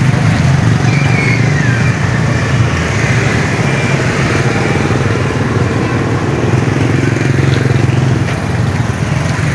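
Steady stream of motorbikes running past along a wet road, their engines a continuous low drone.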